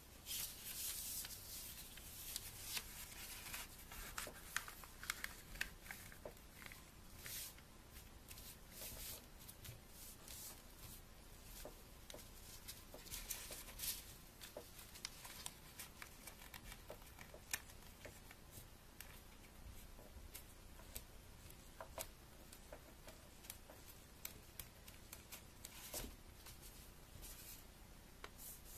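A sheet of paper being folded and creased by hand: faint, irregular rustling and crinkling, with short sharp clicks as the folds are pressed flat.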